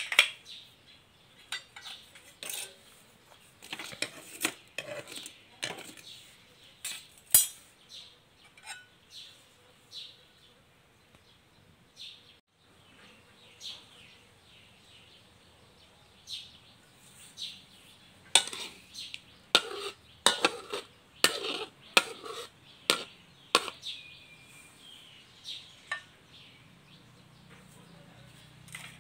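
Metal kitchenware clinking and tapping, a utensil against a wok and pans: sharp separate clinks throughout, with a busy spell a few seconds in and a longer one past the middle.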